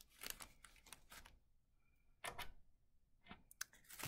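Faint, scattered clicks and taps, a handful of them, of wooden toothpicks being picked up off a tabletop and handled while being pushed into marshmallows.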